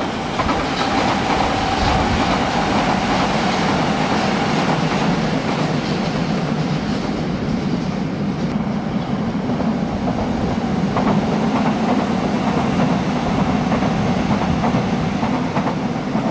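Nagoya subway Higashiyama Line electric train running on surface track, a steady loud rumble of wheels on rail with clickety-clack. A held high tone sounds over it for the first few seconds.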